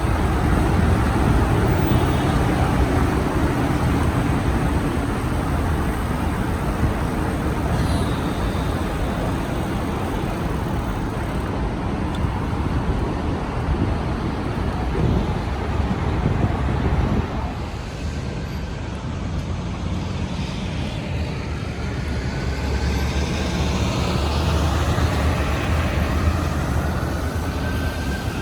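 City street traffic noise heard while riding a bicycle, with a heavy low rumble for the first two-thirds. A wavering tone rises and falls several times over the last ten seconds or so.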